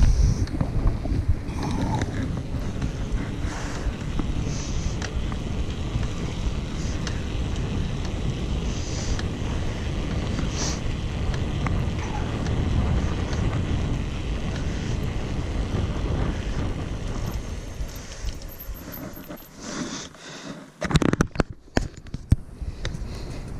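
Wind buffeting the microphone of a camera on a bicycle coasting downhill on asphalt, a steady low rush. Near the end the wind noise fades and a few knocks and rustles follow as the camera is handled.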